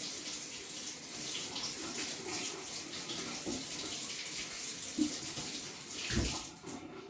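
Kitchen tap running steadily as something is rinsed under it, with a low knock about six seconds in.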